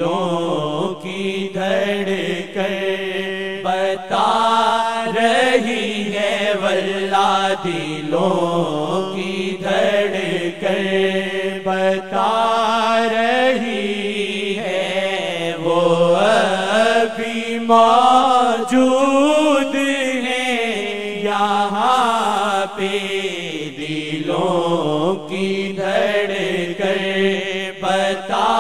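Urdu naat sung unaccompanied: a single voice holding long, slowly gliding melodic phrases over a steady low hum.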